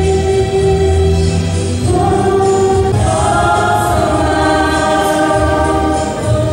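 A female vocal group singing long held notes in harmony, with the notes changing about two and three seconds in.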